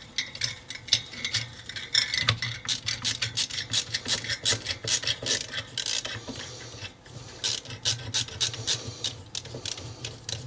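Ratcheting screwdriver backing out heat sink screws: runs of quick ratchet clicks, about three or four a second, with a short pause about two-thirds of the way through.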